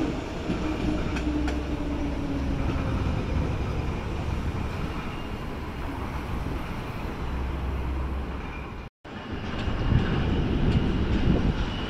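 Train running along the rail corridor: a steady low rumble of wheels on track with a faint falling tone early on. About nine seconds in the sound drops out for a moment, then the rumble resumes.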